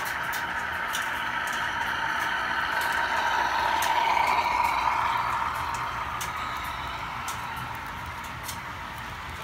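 HO scale model freight train running past: the running sound of two CN Dash 8 model locomotives swells as they pass close about four seconds in, then eases off as the hoppers and boxcars roll by, with light clicking from the wheels on the track.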